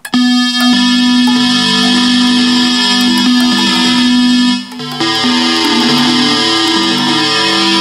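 Jamstik Plus digital guitar played through its app's Square Wave synth voice: a strummed chord held for about four and a half seconds, then a second held chord about five seconds in.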